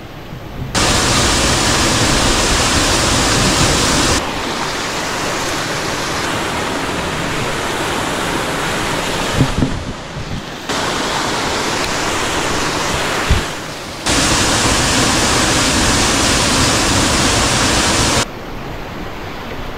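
Mountain stream and waterfall water rushing in a steady noise. Its level jumps abruptly several times, about 1, 4, 10, 14 and 18 seconds in.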